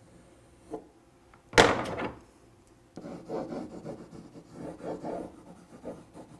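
Marker drawing on a whiteboard: a run of short rubbing strokes from about three seconds in. A single sudden, loud knock or scrape comes about a second and a half in, the loudest sound here.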